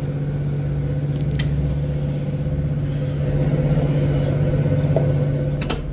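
A standing passenger train's engine or traction equipment running with a steady low hum. Two or three sharp clicks cut across it, the last one near the end as the sound drops.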